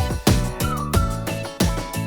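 Background music with a steady beat and a high, whistle-like gliding melody.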